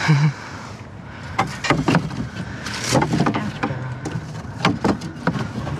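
Rummaging through a plastic wheelie bin of trash: irregular knocks and clatter of wood and junk being moved, with rustling of plastic bags.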